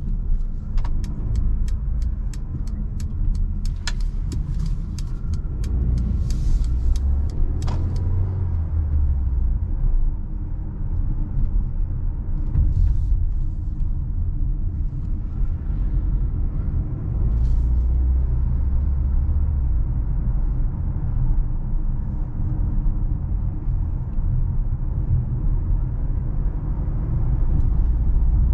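2021 Mercedes GLA 1.3-litre, 163 hp turbo four-cylinder car driving, with a steady low engine and road rumble. A run of quick, even ticks, about three a second, sounds over roughly the first eight seconds.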